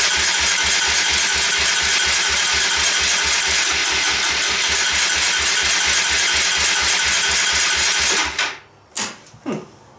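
Motorcycle engine being cranked over by its electric starter for about eight seconds, chugging at about five compression pulses a second without catching, then the starter is released. It is a non-start, with the choke setting in doubt and the engine possibly flooding.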